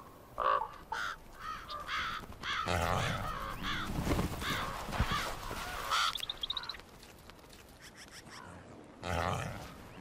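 Eagles giving repeated harsh cries while fighting a coyote over a carcass, with scuffling and a few low thumps in the middle. A quick rising run of high piping notes comes about six and a half seconds in, then the calling dies down.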